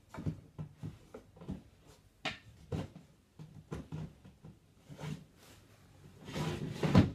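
Wooden drawer being worked in and out of a chest of drawers: a series of small knocks, then a longer scraping slide near the end that finishes in a loud thump as it shuts. The drawer's sides have been packed so that it runs tight.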